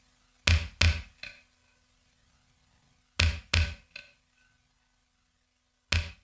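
Heavy knocks in sets of three, the strikes about a third of a second apart, each set coming around every two and a half to three seconds, with a faint steady hum underneath.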